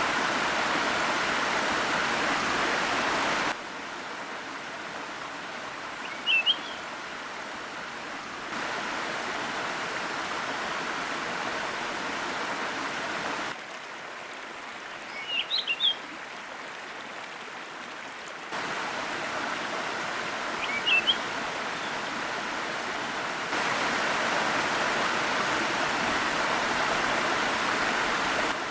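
Waterfall's rushing water, steady but jumping abruptly in level and tone every five seconds or so. Short, high bird chirps break in three times.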